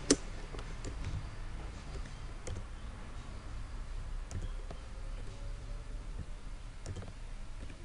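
Computer mouse clicking: one sharp click right at the start, then a few faint, widely spaced clicks, over a low steady hum.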